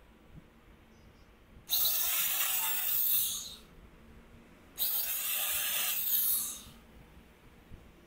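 Electric drill boring into laminated chipboard, in two short runs of under two seconds each, about two and five seconds in. These are starter holes at the corners of a square marked for cutting out an opening.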